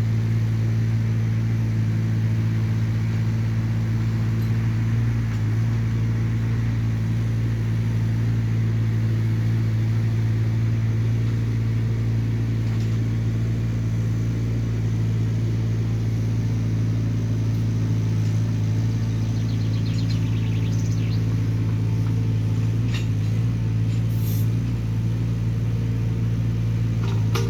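Hyundai small excavator's diesel engine running at a steady speed, with a constant-pitched hum. A few light clicks come near the end.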